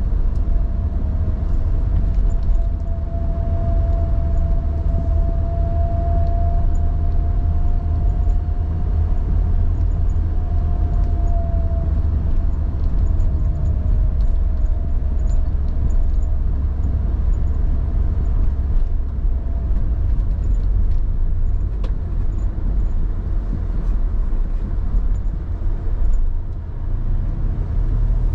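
Car driving at steady speed, heard from inside the car: a constant low rumble of engine and road noise. A faint steady whine sits over it through the first half and then fades.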